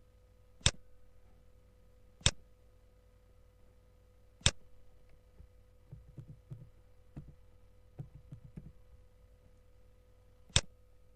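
Computer mouse clicks: four sharp, separate clicks spread over the stretch, with a run of lighter clicks and taps in the middle, over a faint steady electrical hum.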